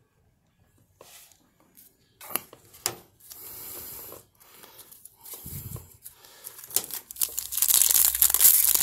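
Scattered light rustles and taps of trading cards being handled. Then, from about seven seconds in, a foil trading-card pack wrapper is torn open and crinkles, growing louder toward the end.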